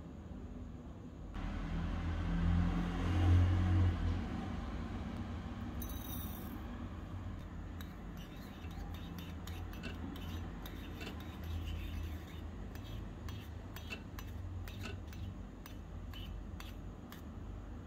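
A tiny metal spoon clicking and scraping against a miniature stainless-steel kadai as seeds are stirred into oil. It makes many small sharp clicks from about six seconds in, over a steady hiss, with a louder rush of noise in the first few seconds.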